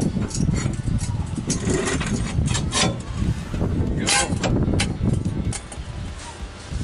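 Metal clinks and scrapes of steel U-bolts being fitted over a leaf spring and lift block on a truck's rear axle: several sharp clinks, the loudest about four seconds in, over a steady low rumble.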